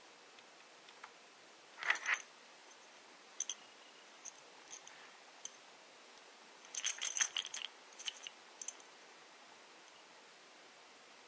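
Light clicks and small clinks from a plastic referee whistle being handled rather than blown. There is a short cluster about two seconds in, scattered single ticks after it, and a busier run of clicks about seven seconds in.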